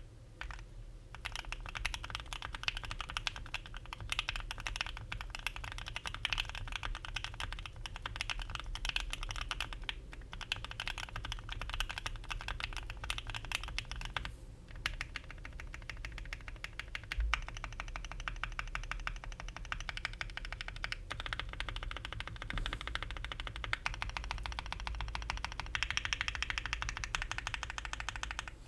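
Steady typing on a custom 60% mechanical keyboard: ThicThock Marshmallow linear switches, lubed and filmed, on an FR4 plate in a cast-aluminium Bakeneko60 case with polyfill. The keystrokes come in a dense stream with a few short pauses: about a second in, around ten seconds, and near the middle.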